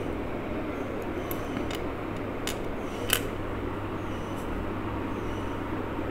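Steady low hum and rumble, with a few light clicks a little after the middle, the sharpest about three seconds in.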